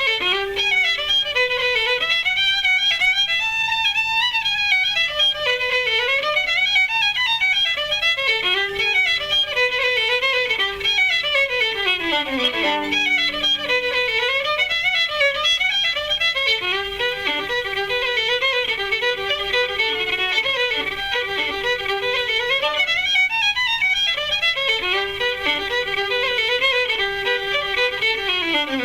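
Irish fiddle music: a fiddle plays a fast melody in quick runs of notes rising and falling, over a steady lower accompaniment.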